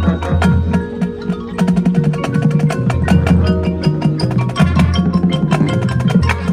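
Marching band playing, dominated by rapid, busy percussion strikes and mallet-keyboard notes over sustained low notes.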